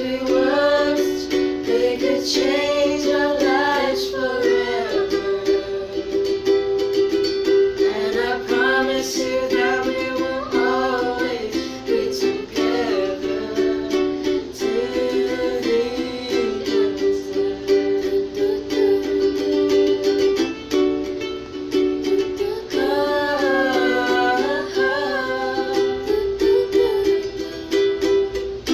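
A ukulele strumming chords, with voices singing a song over it in phrases and the ukulele playing on alone between them.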